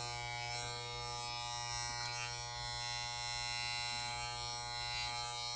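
Corded electric hair clippers running steadily as they shave hair short at the side of the head.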